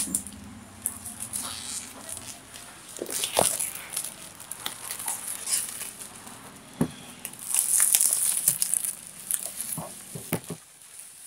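Clear plastic shrink wrap being peeled off a cardboard box and crinkled in the hands, in irregular crackles, with a few sharp knocks as the box is handled.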